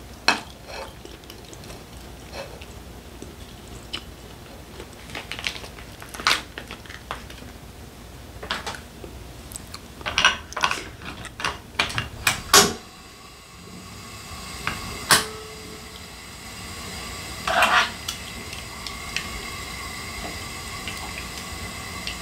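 Metal tongs and dishes clattering against a griddle tray in a string of sharp clicks and knocks, most of them in the first half. Then a faint steady hiss as raw beef offal starts to cook on the hot electric griddle, with a couple more knocks of the tongs.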